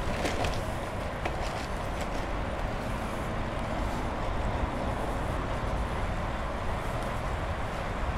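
Steady wash of road-traffic noise mixed with wind rush, heard while riding a bicycle.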